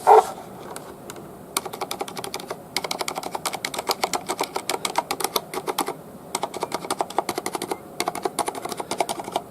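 Typing on a Corsair STRAFE RGB mechanical keyboard with Cherry MX Silent switches: rapid runs of soft key clicks in four bursts with short pauses, starting about a second and a half in. The switches are very quiet for a mechanical keyboard.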